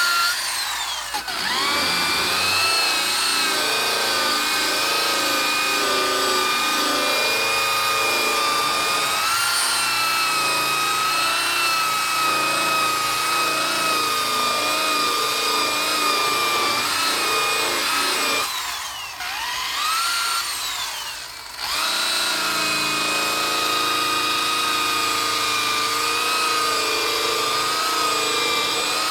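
Electric buffing wheel spinning against a plastic headlight lens, cutting away oxidation with buffing compound. It spins up to a steady high whine at the start. About two-thirds of the way through it eases off briefly, then speeds back up.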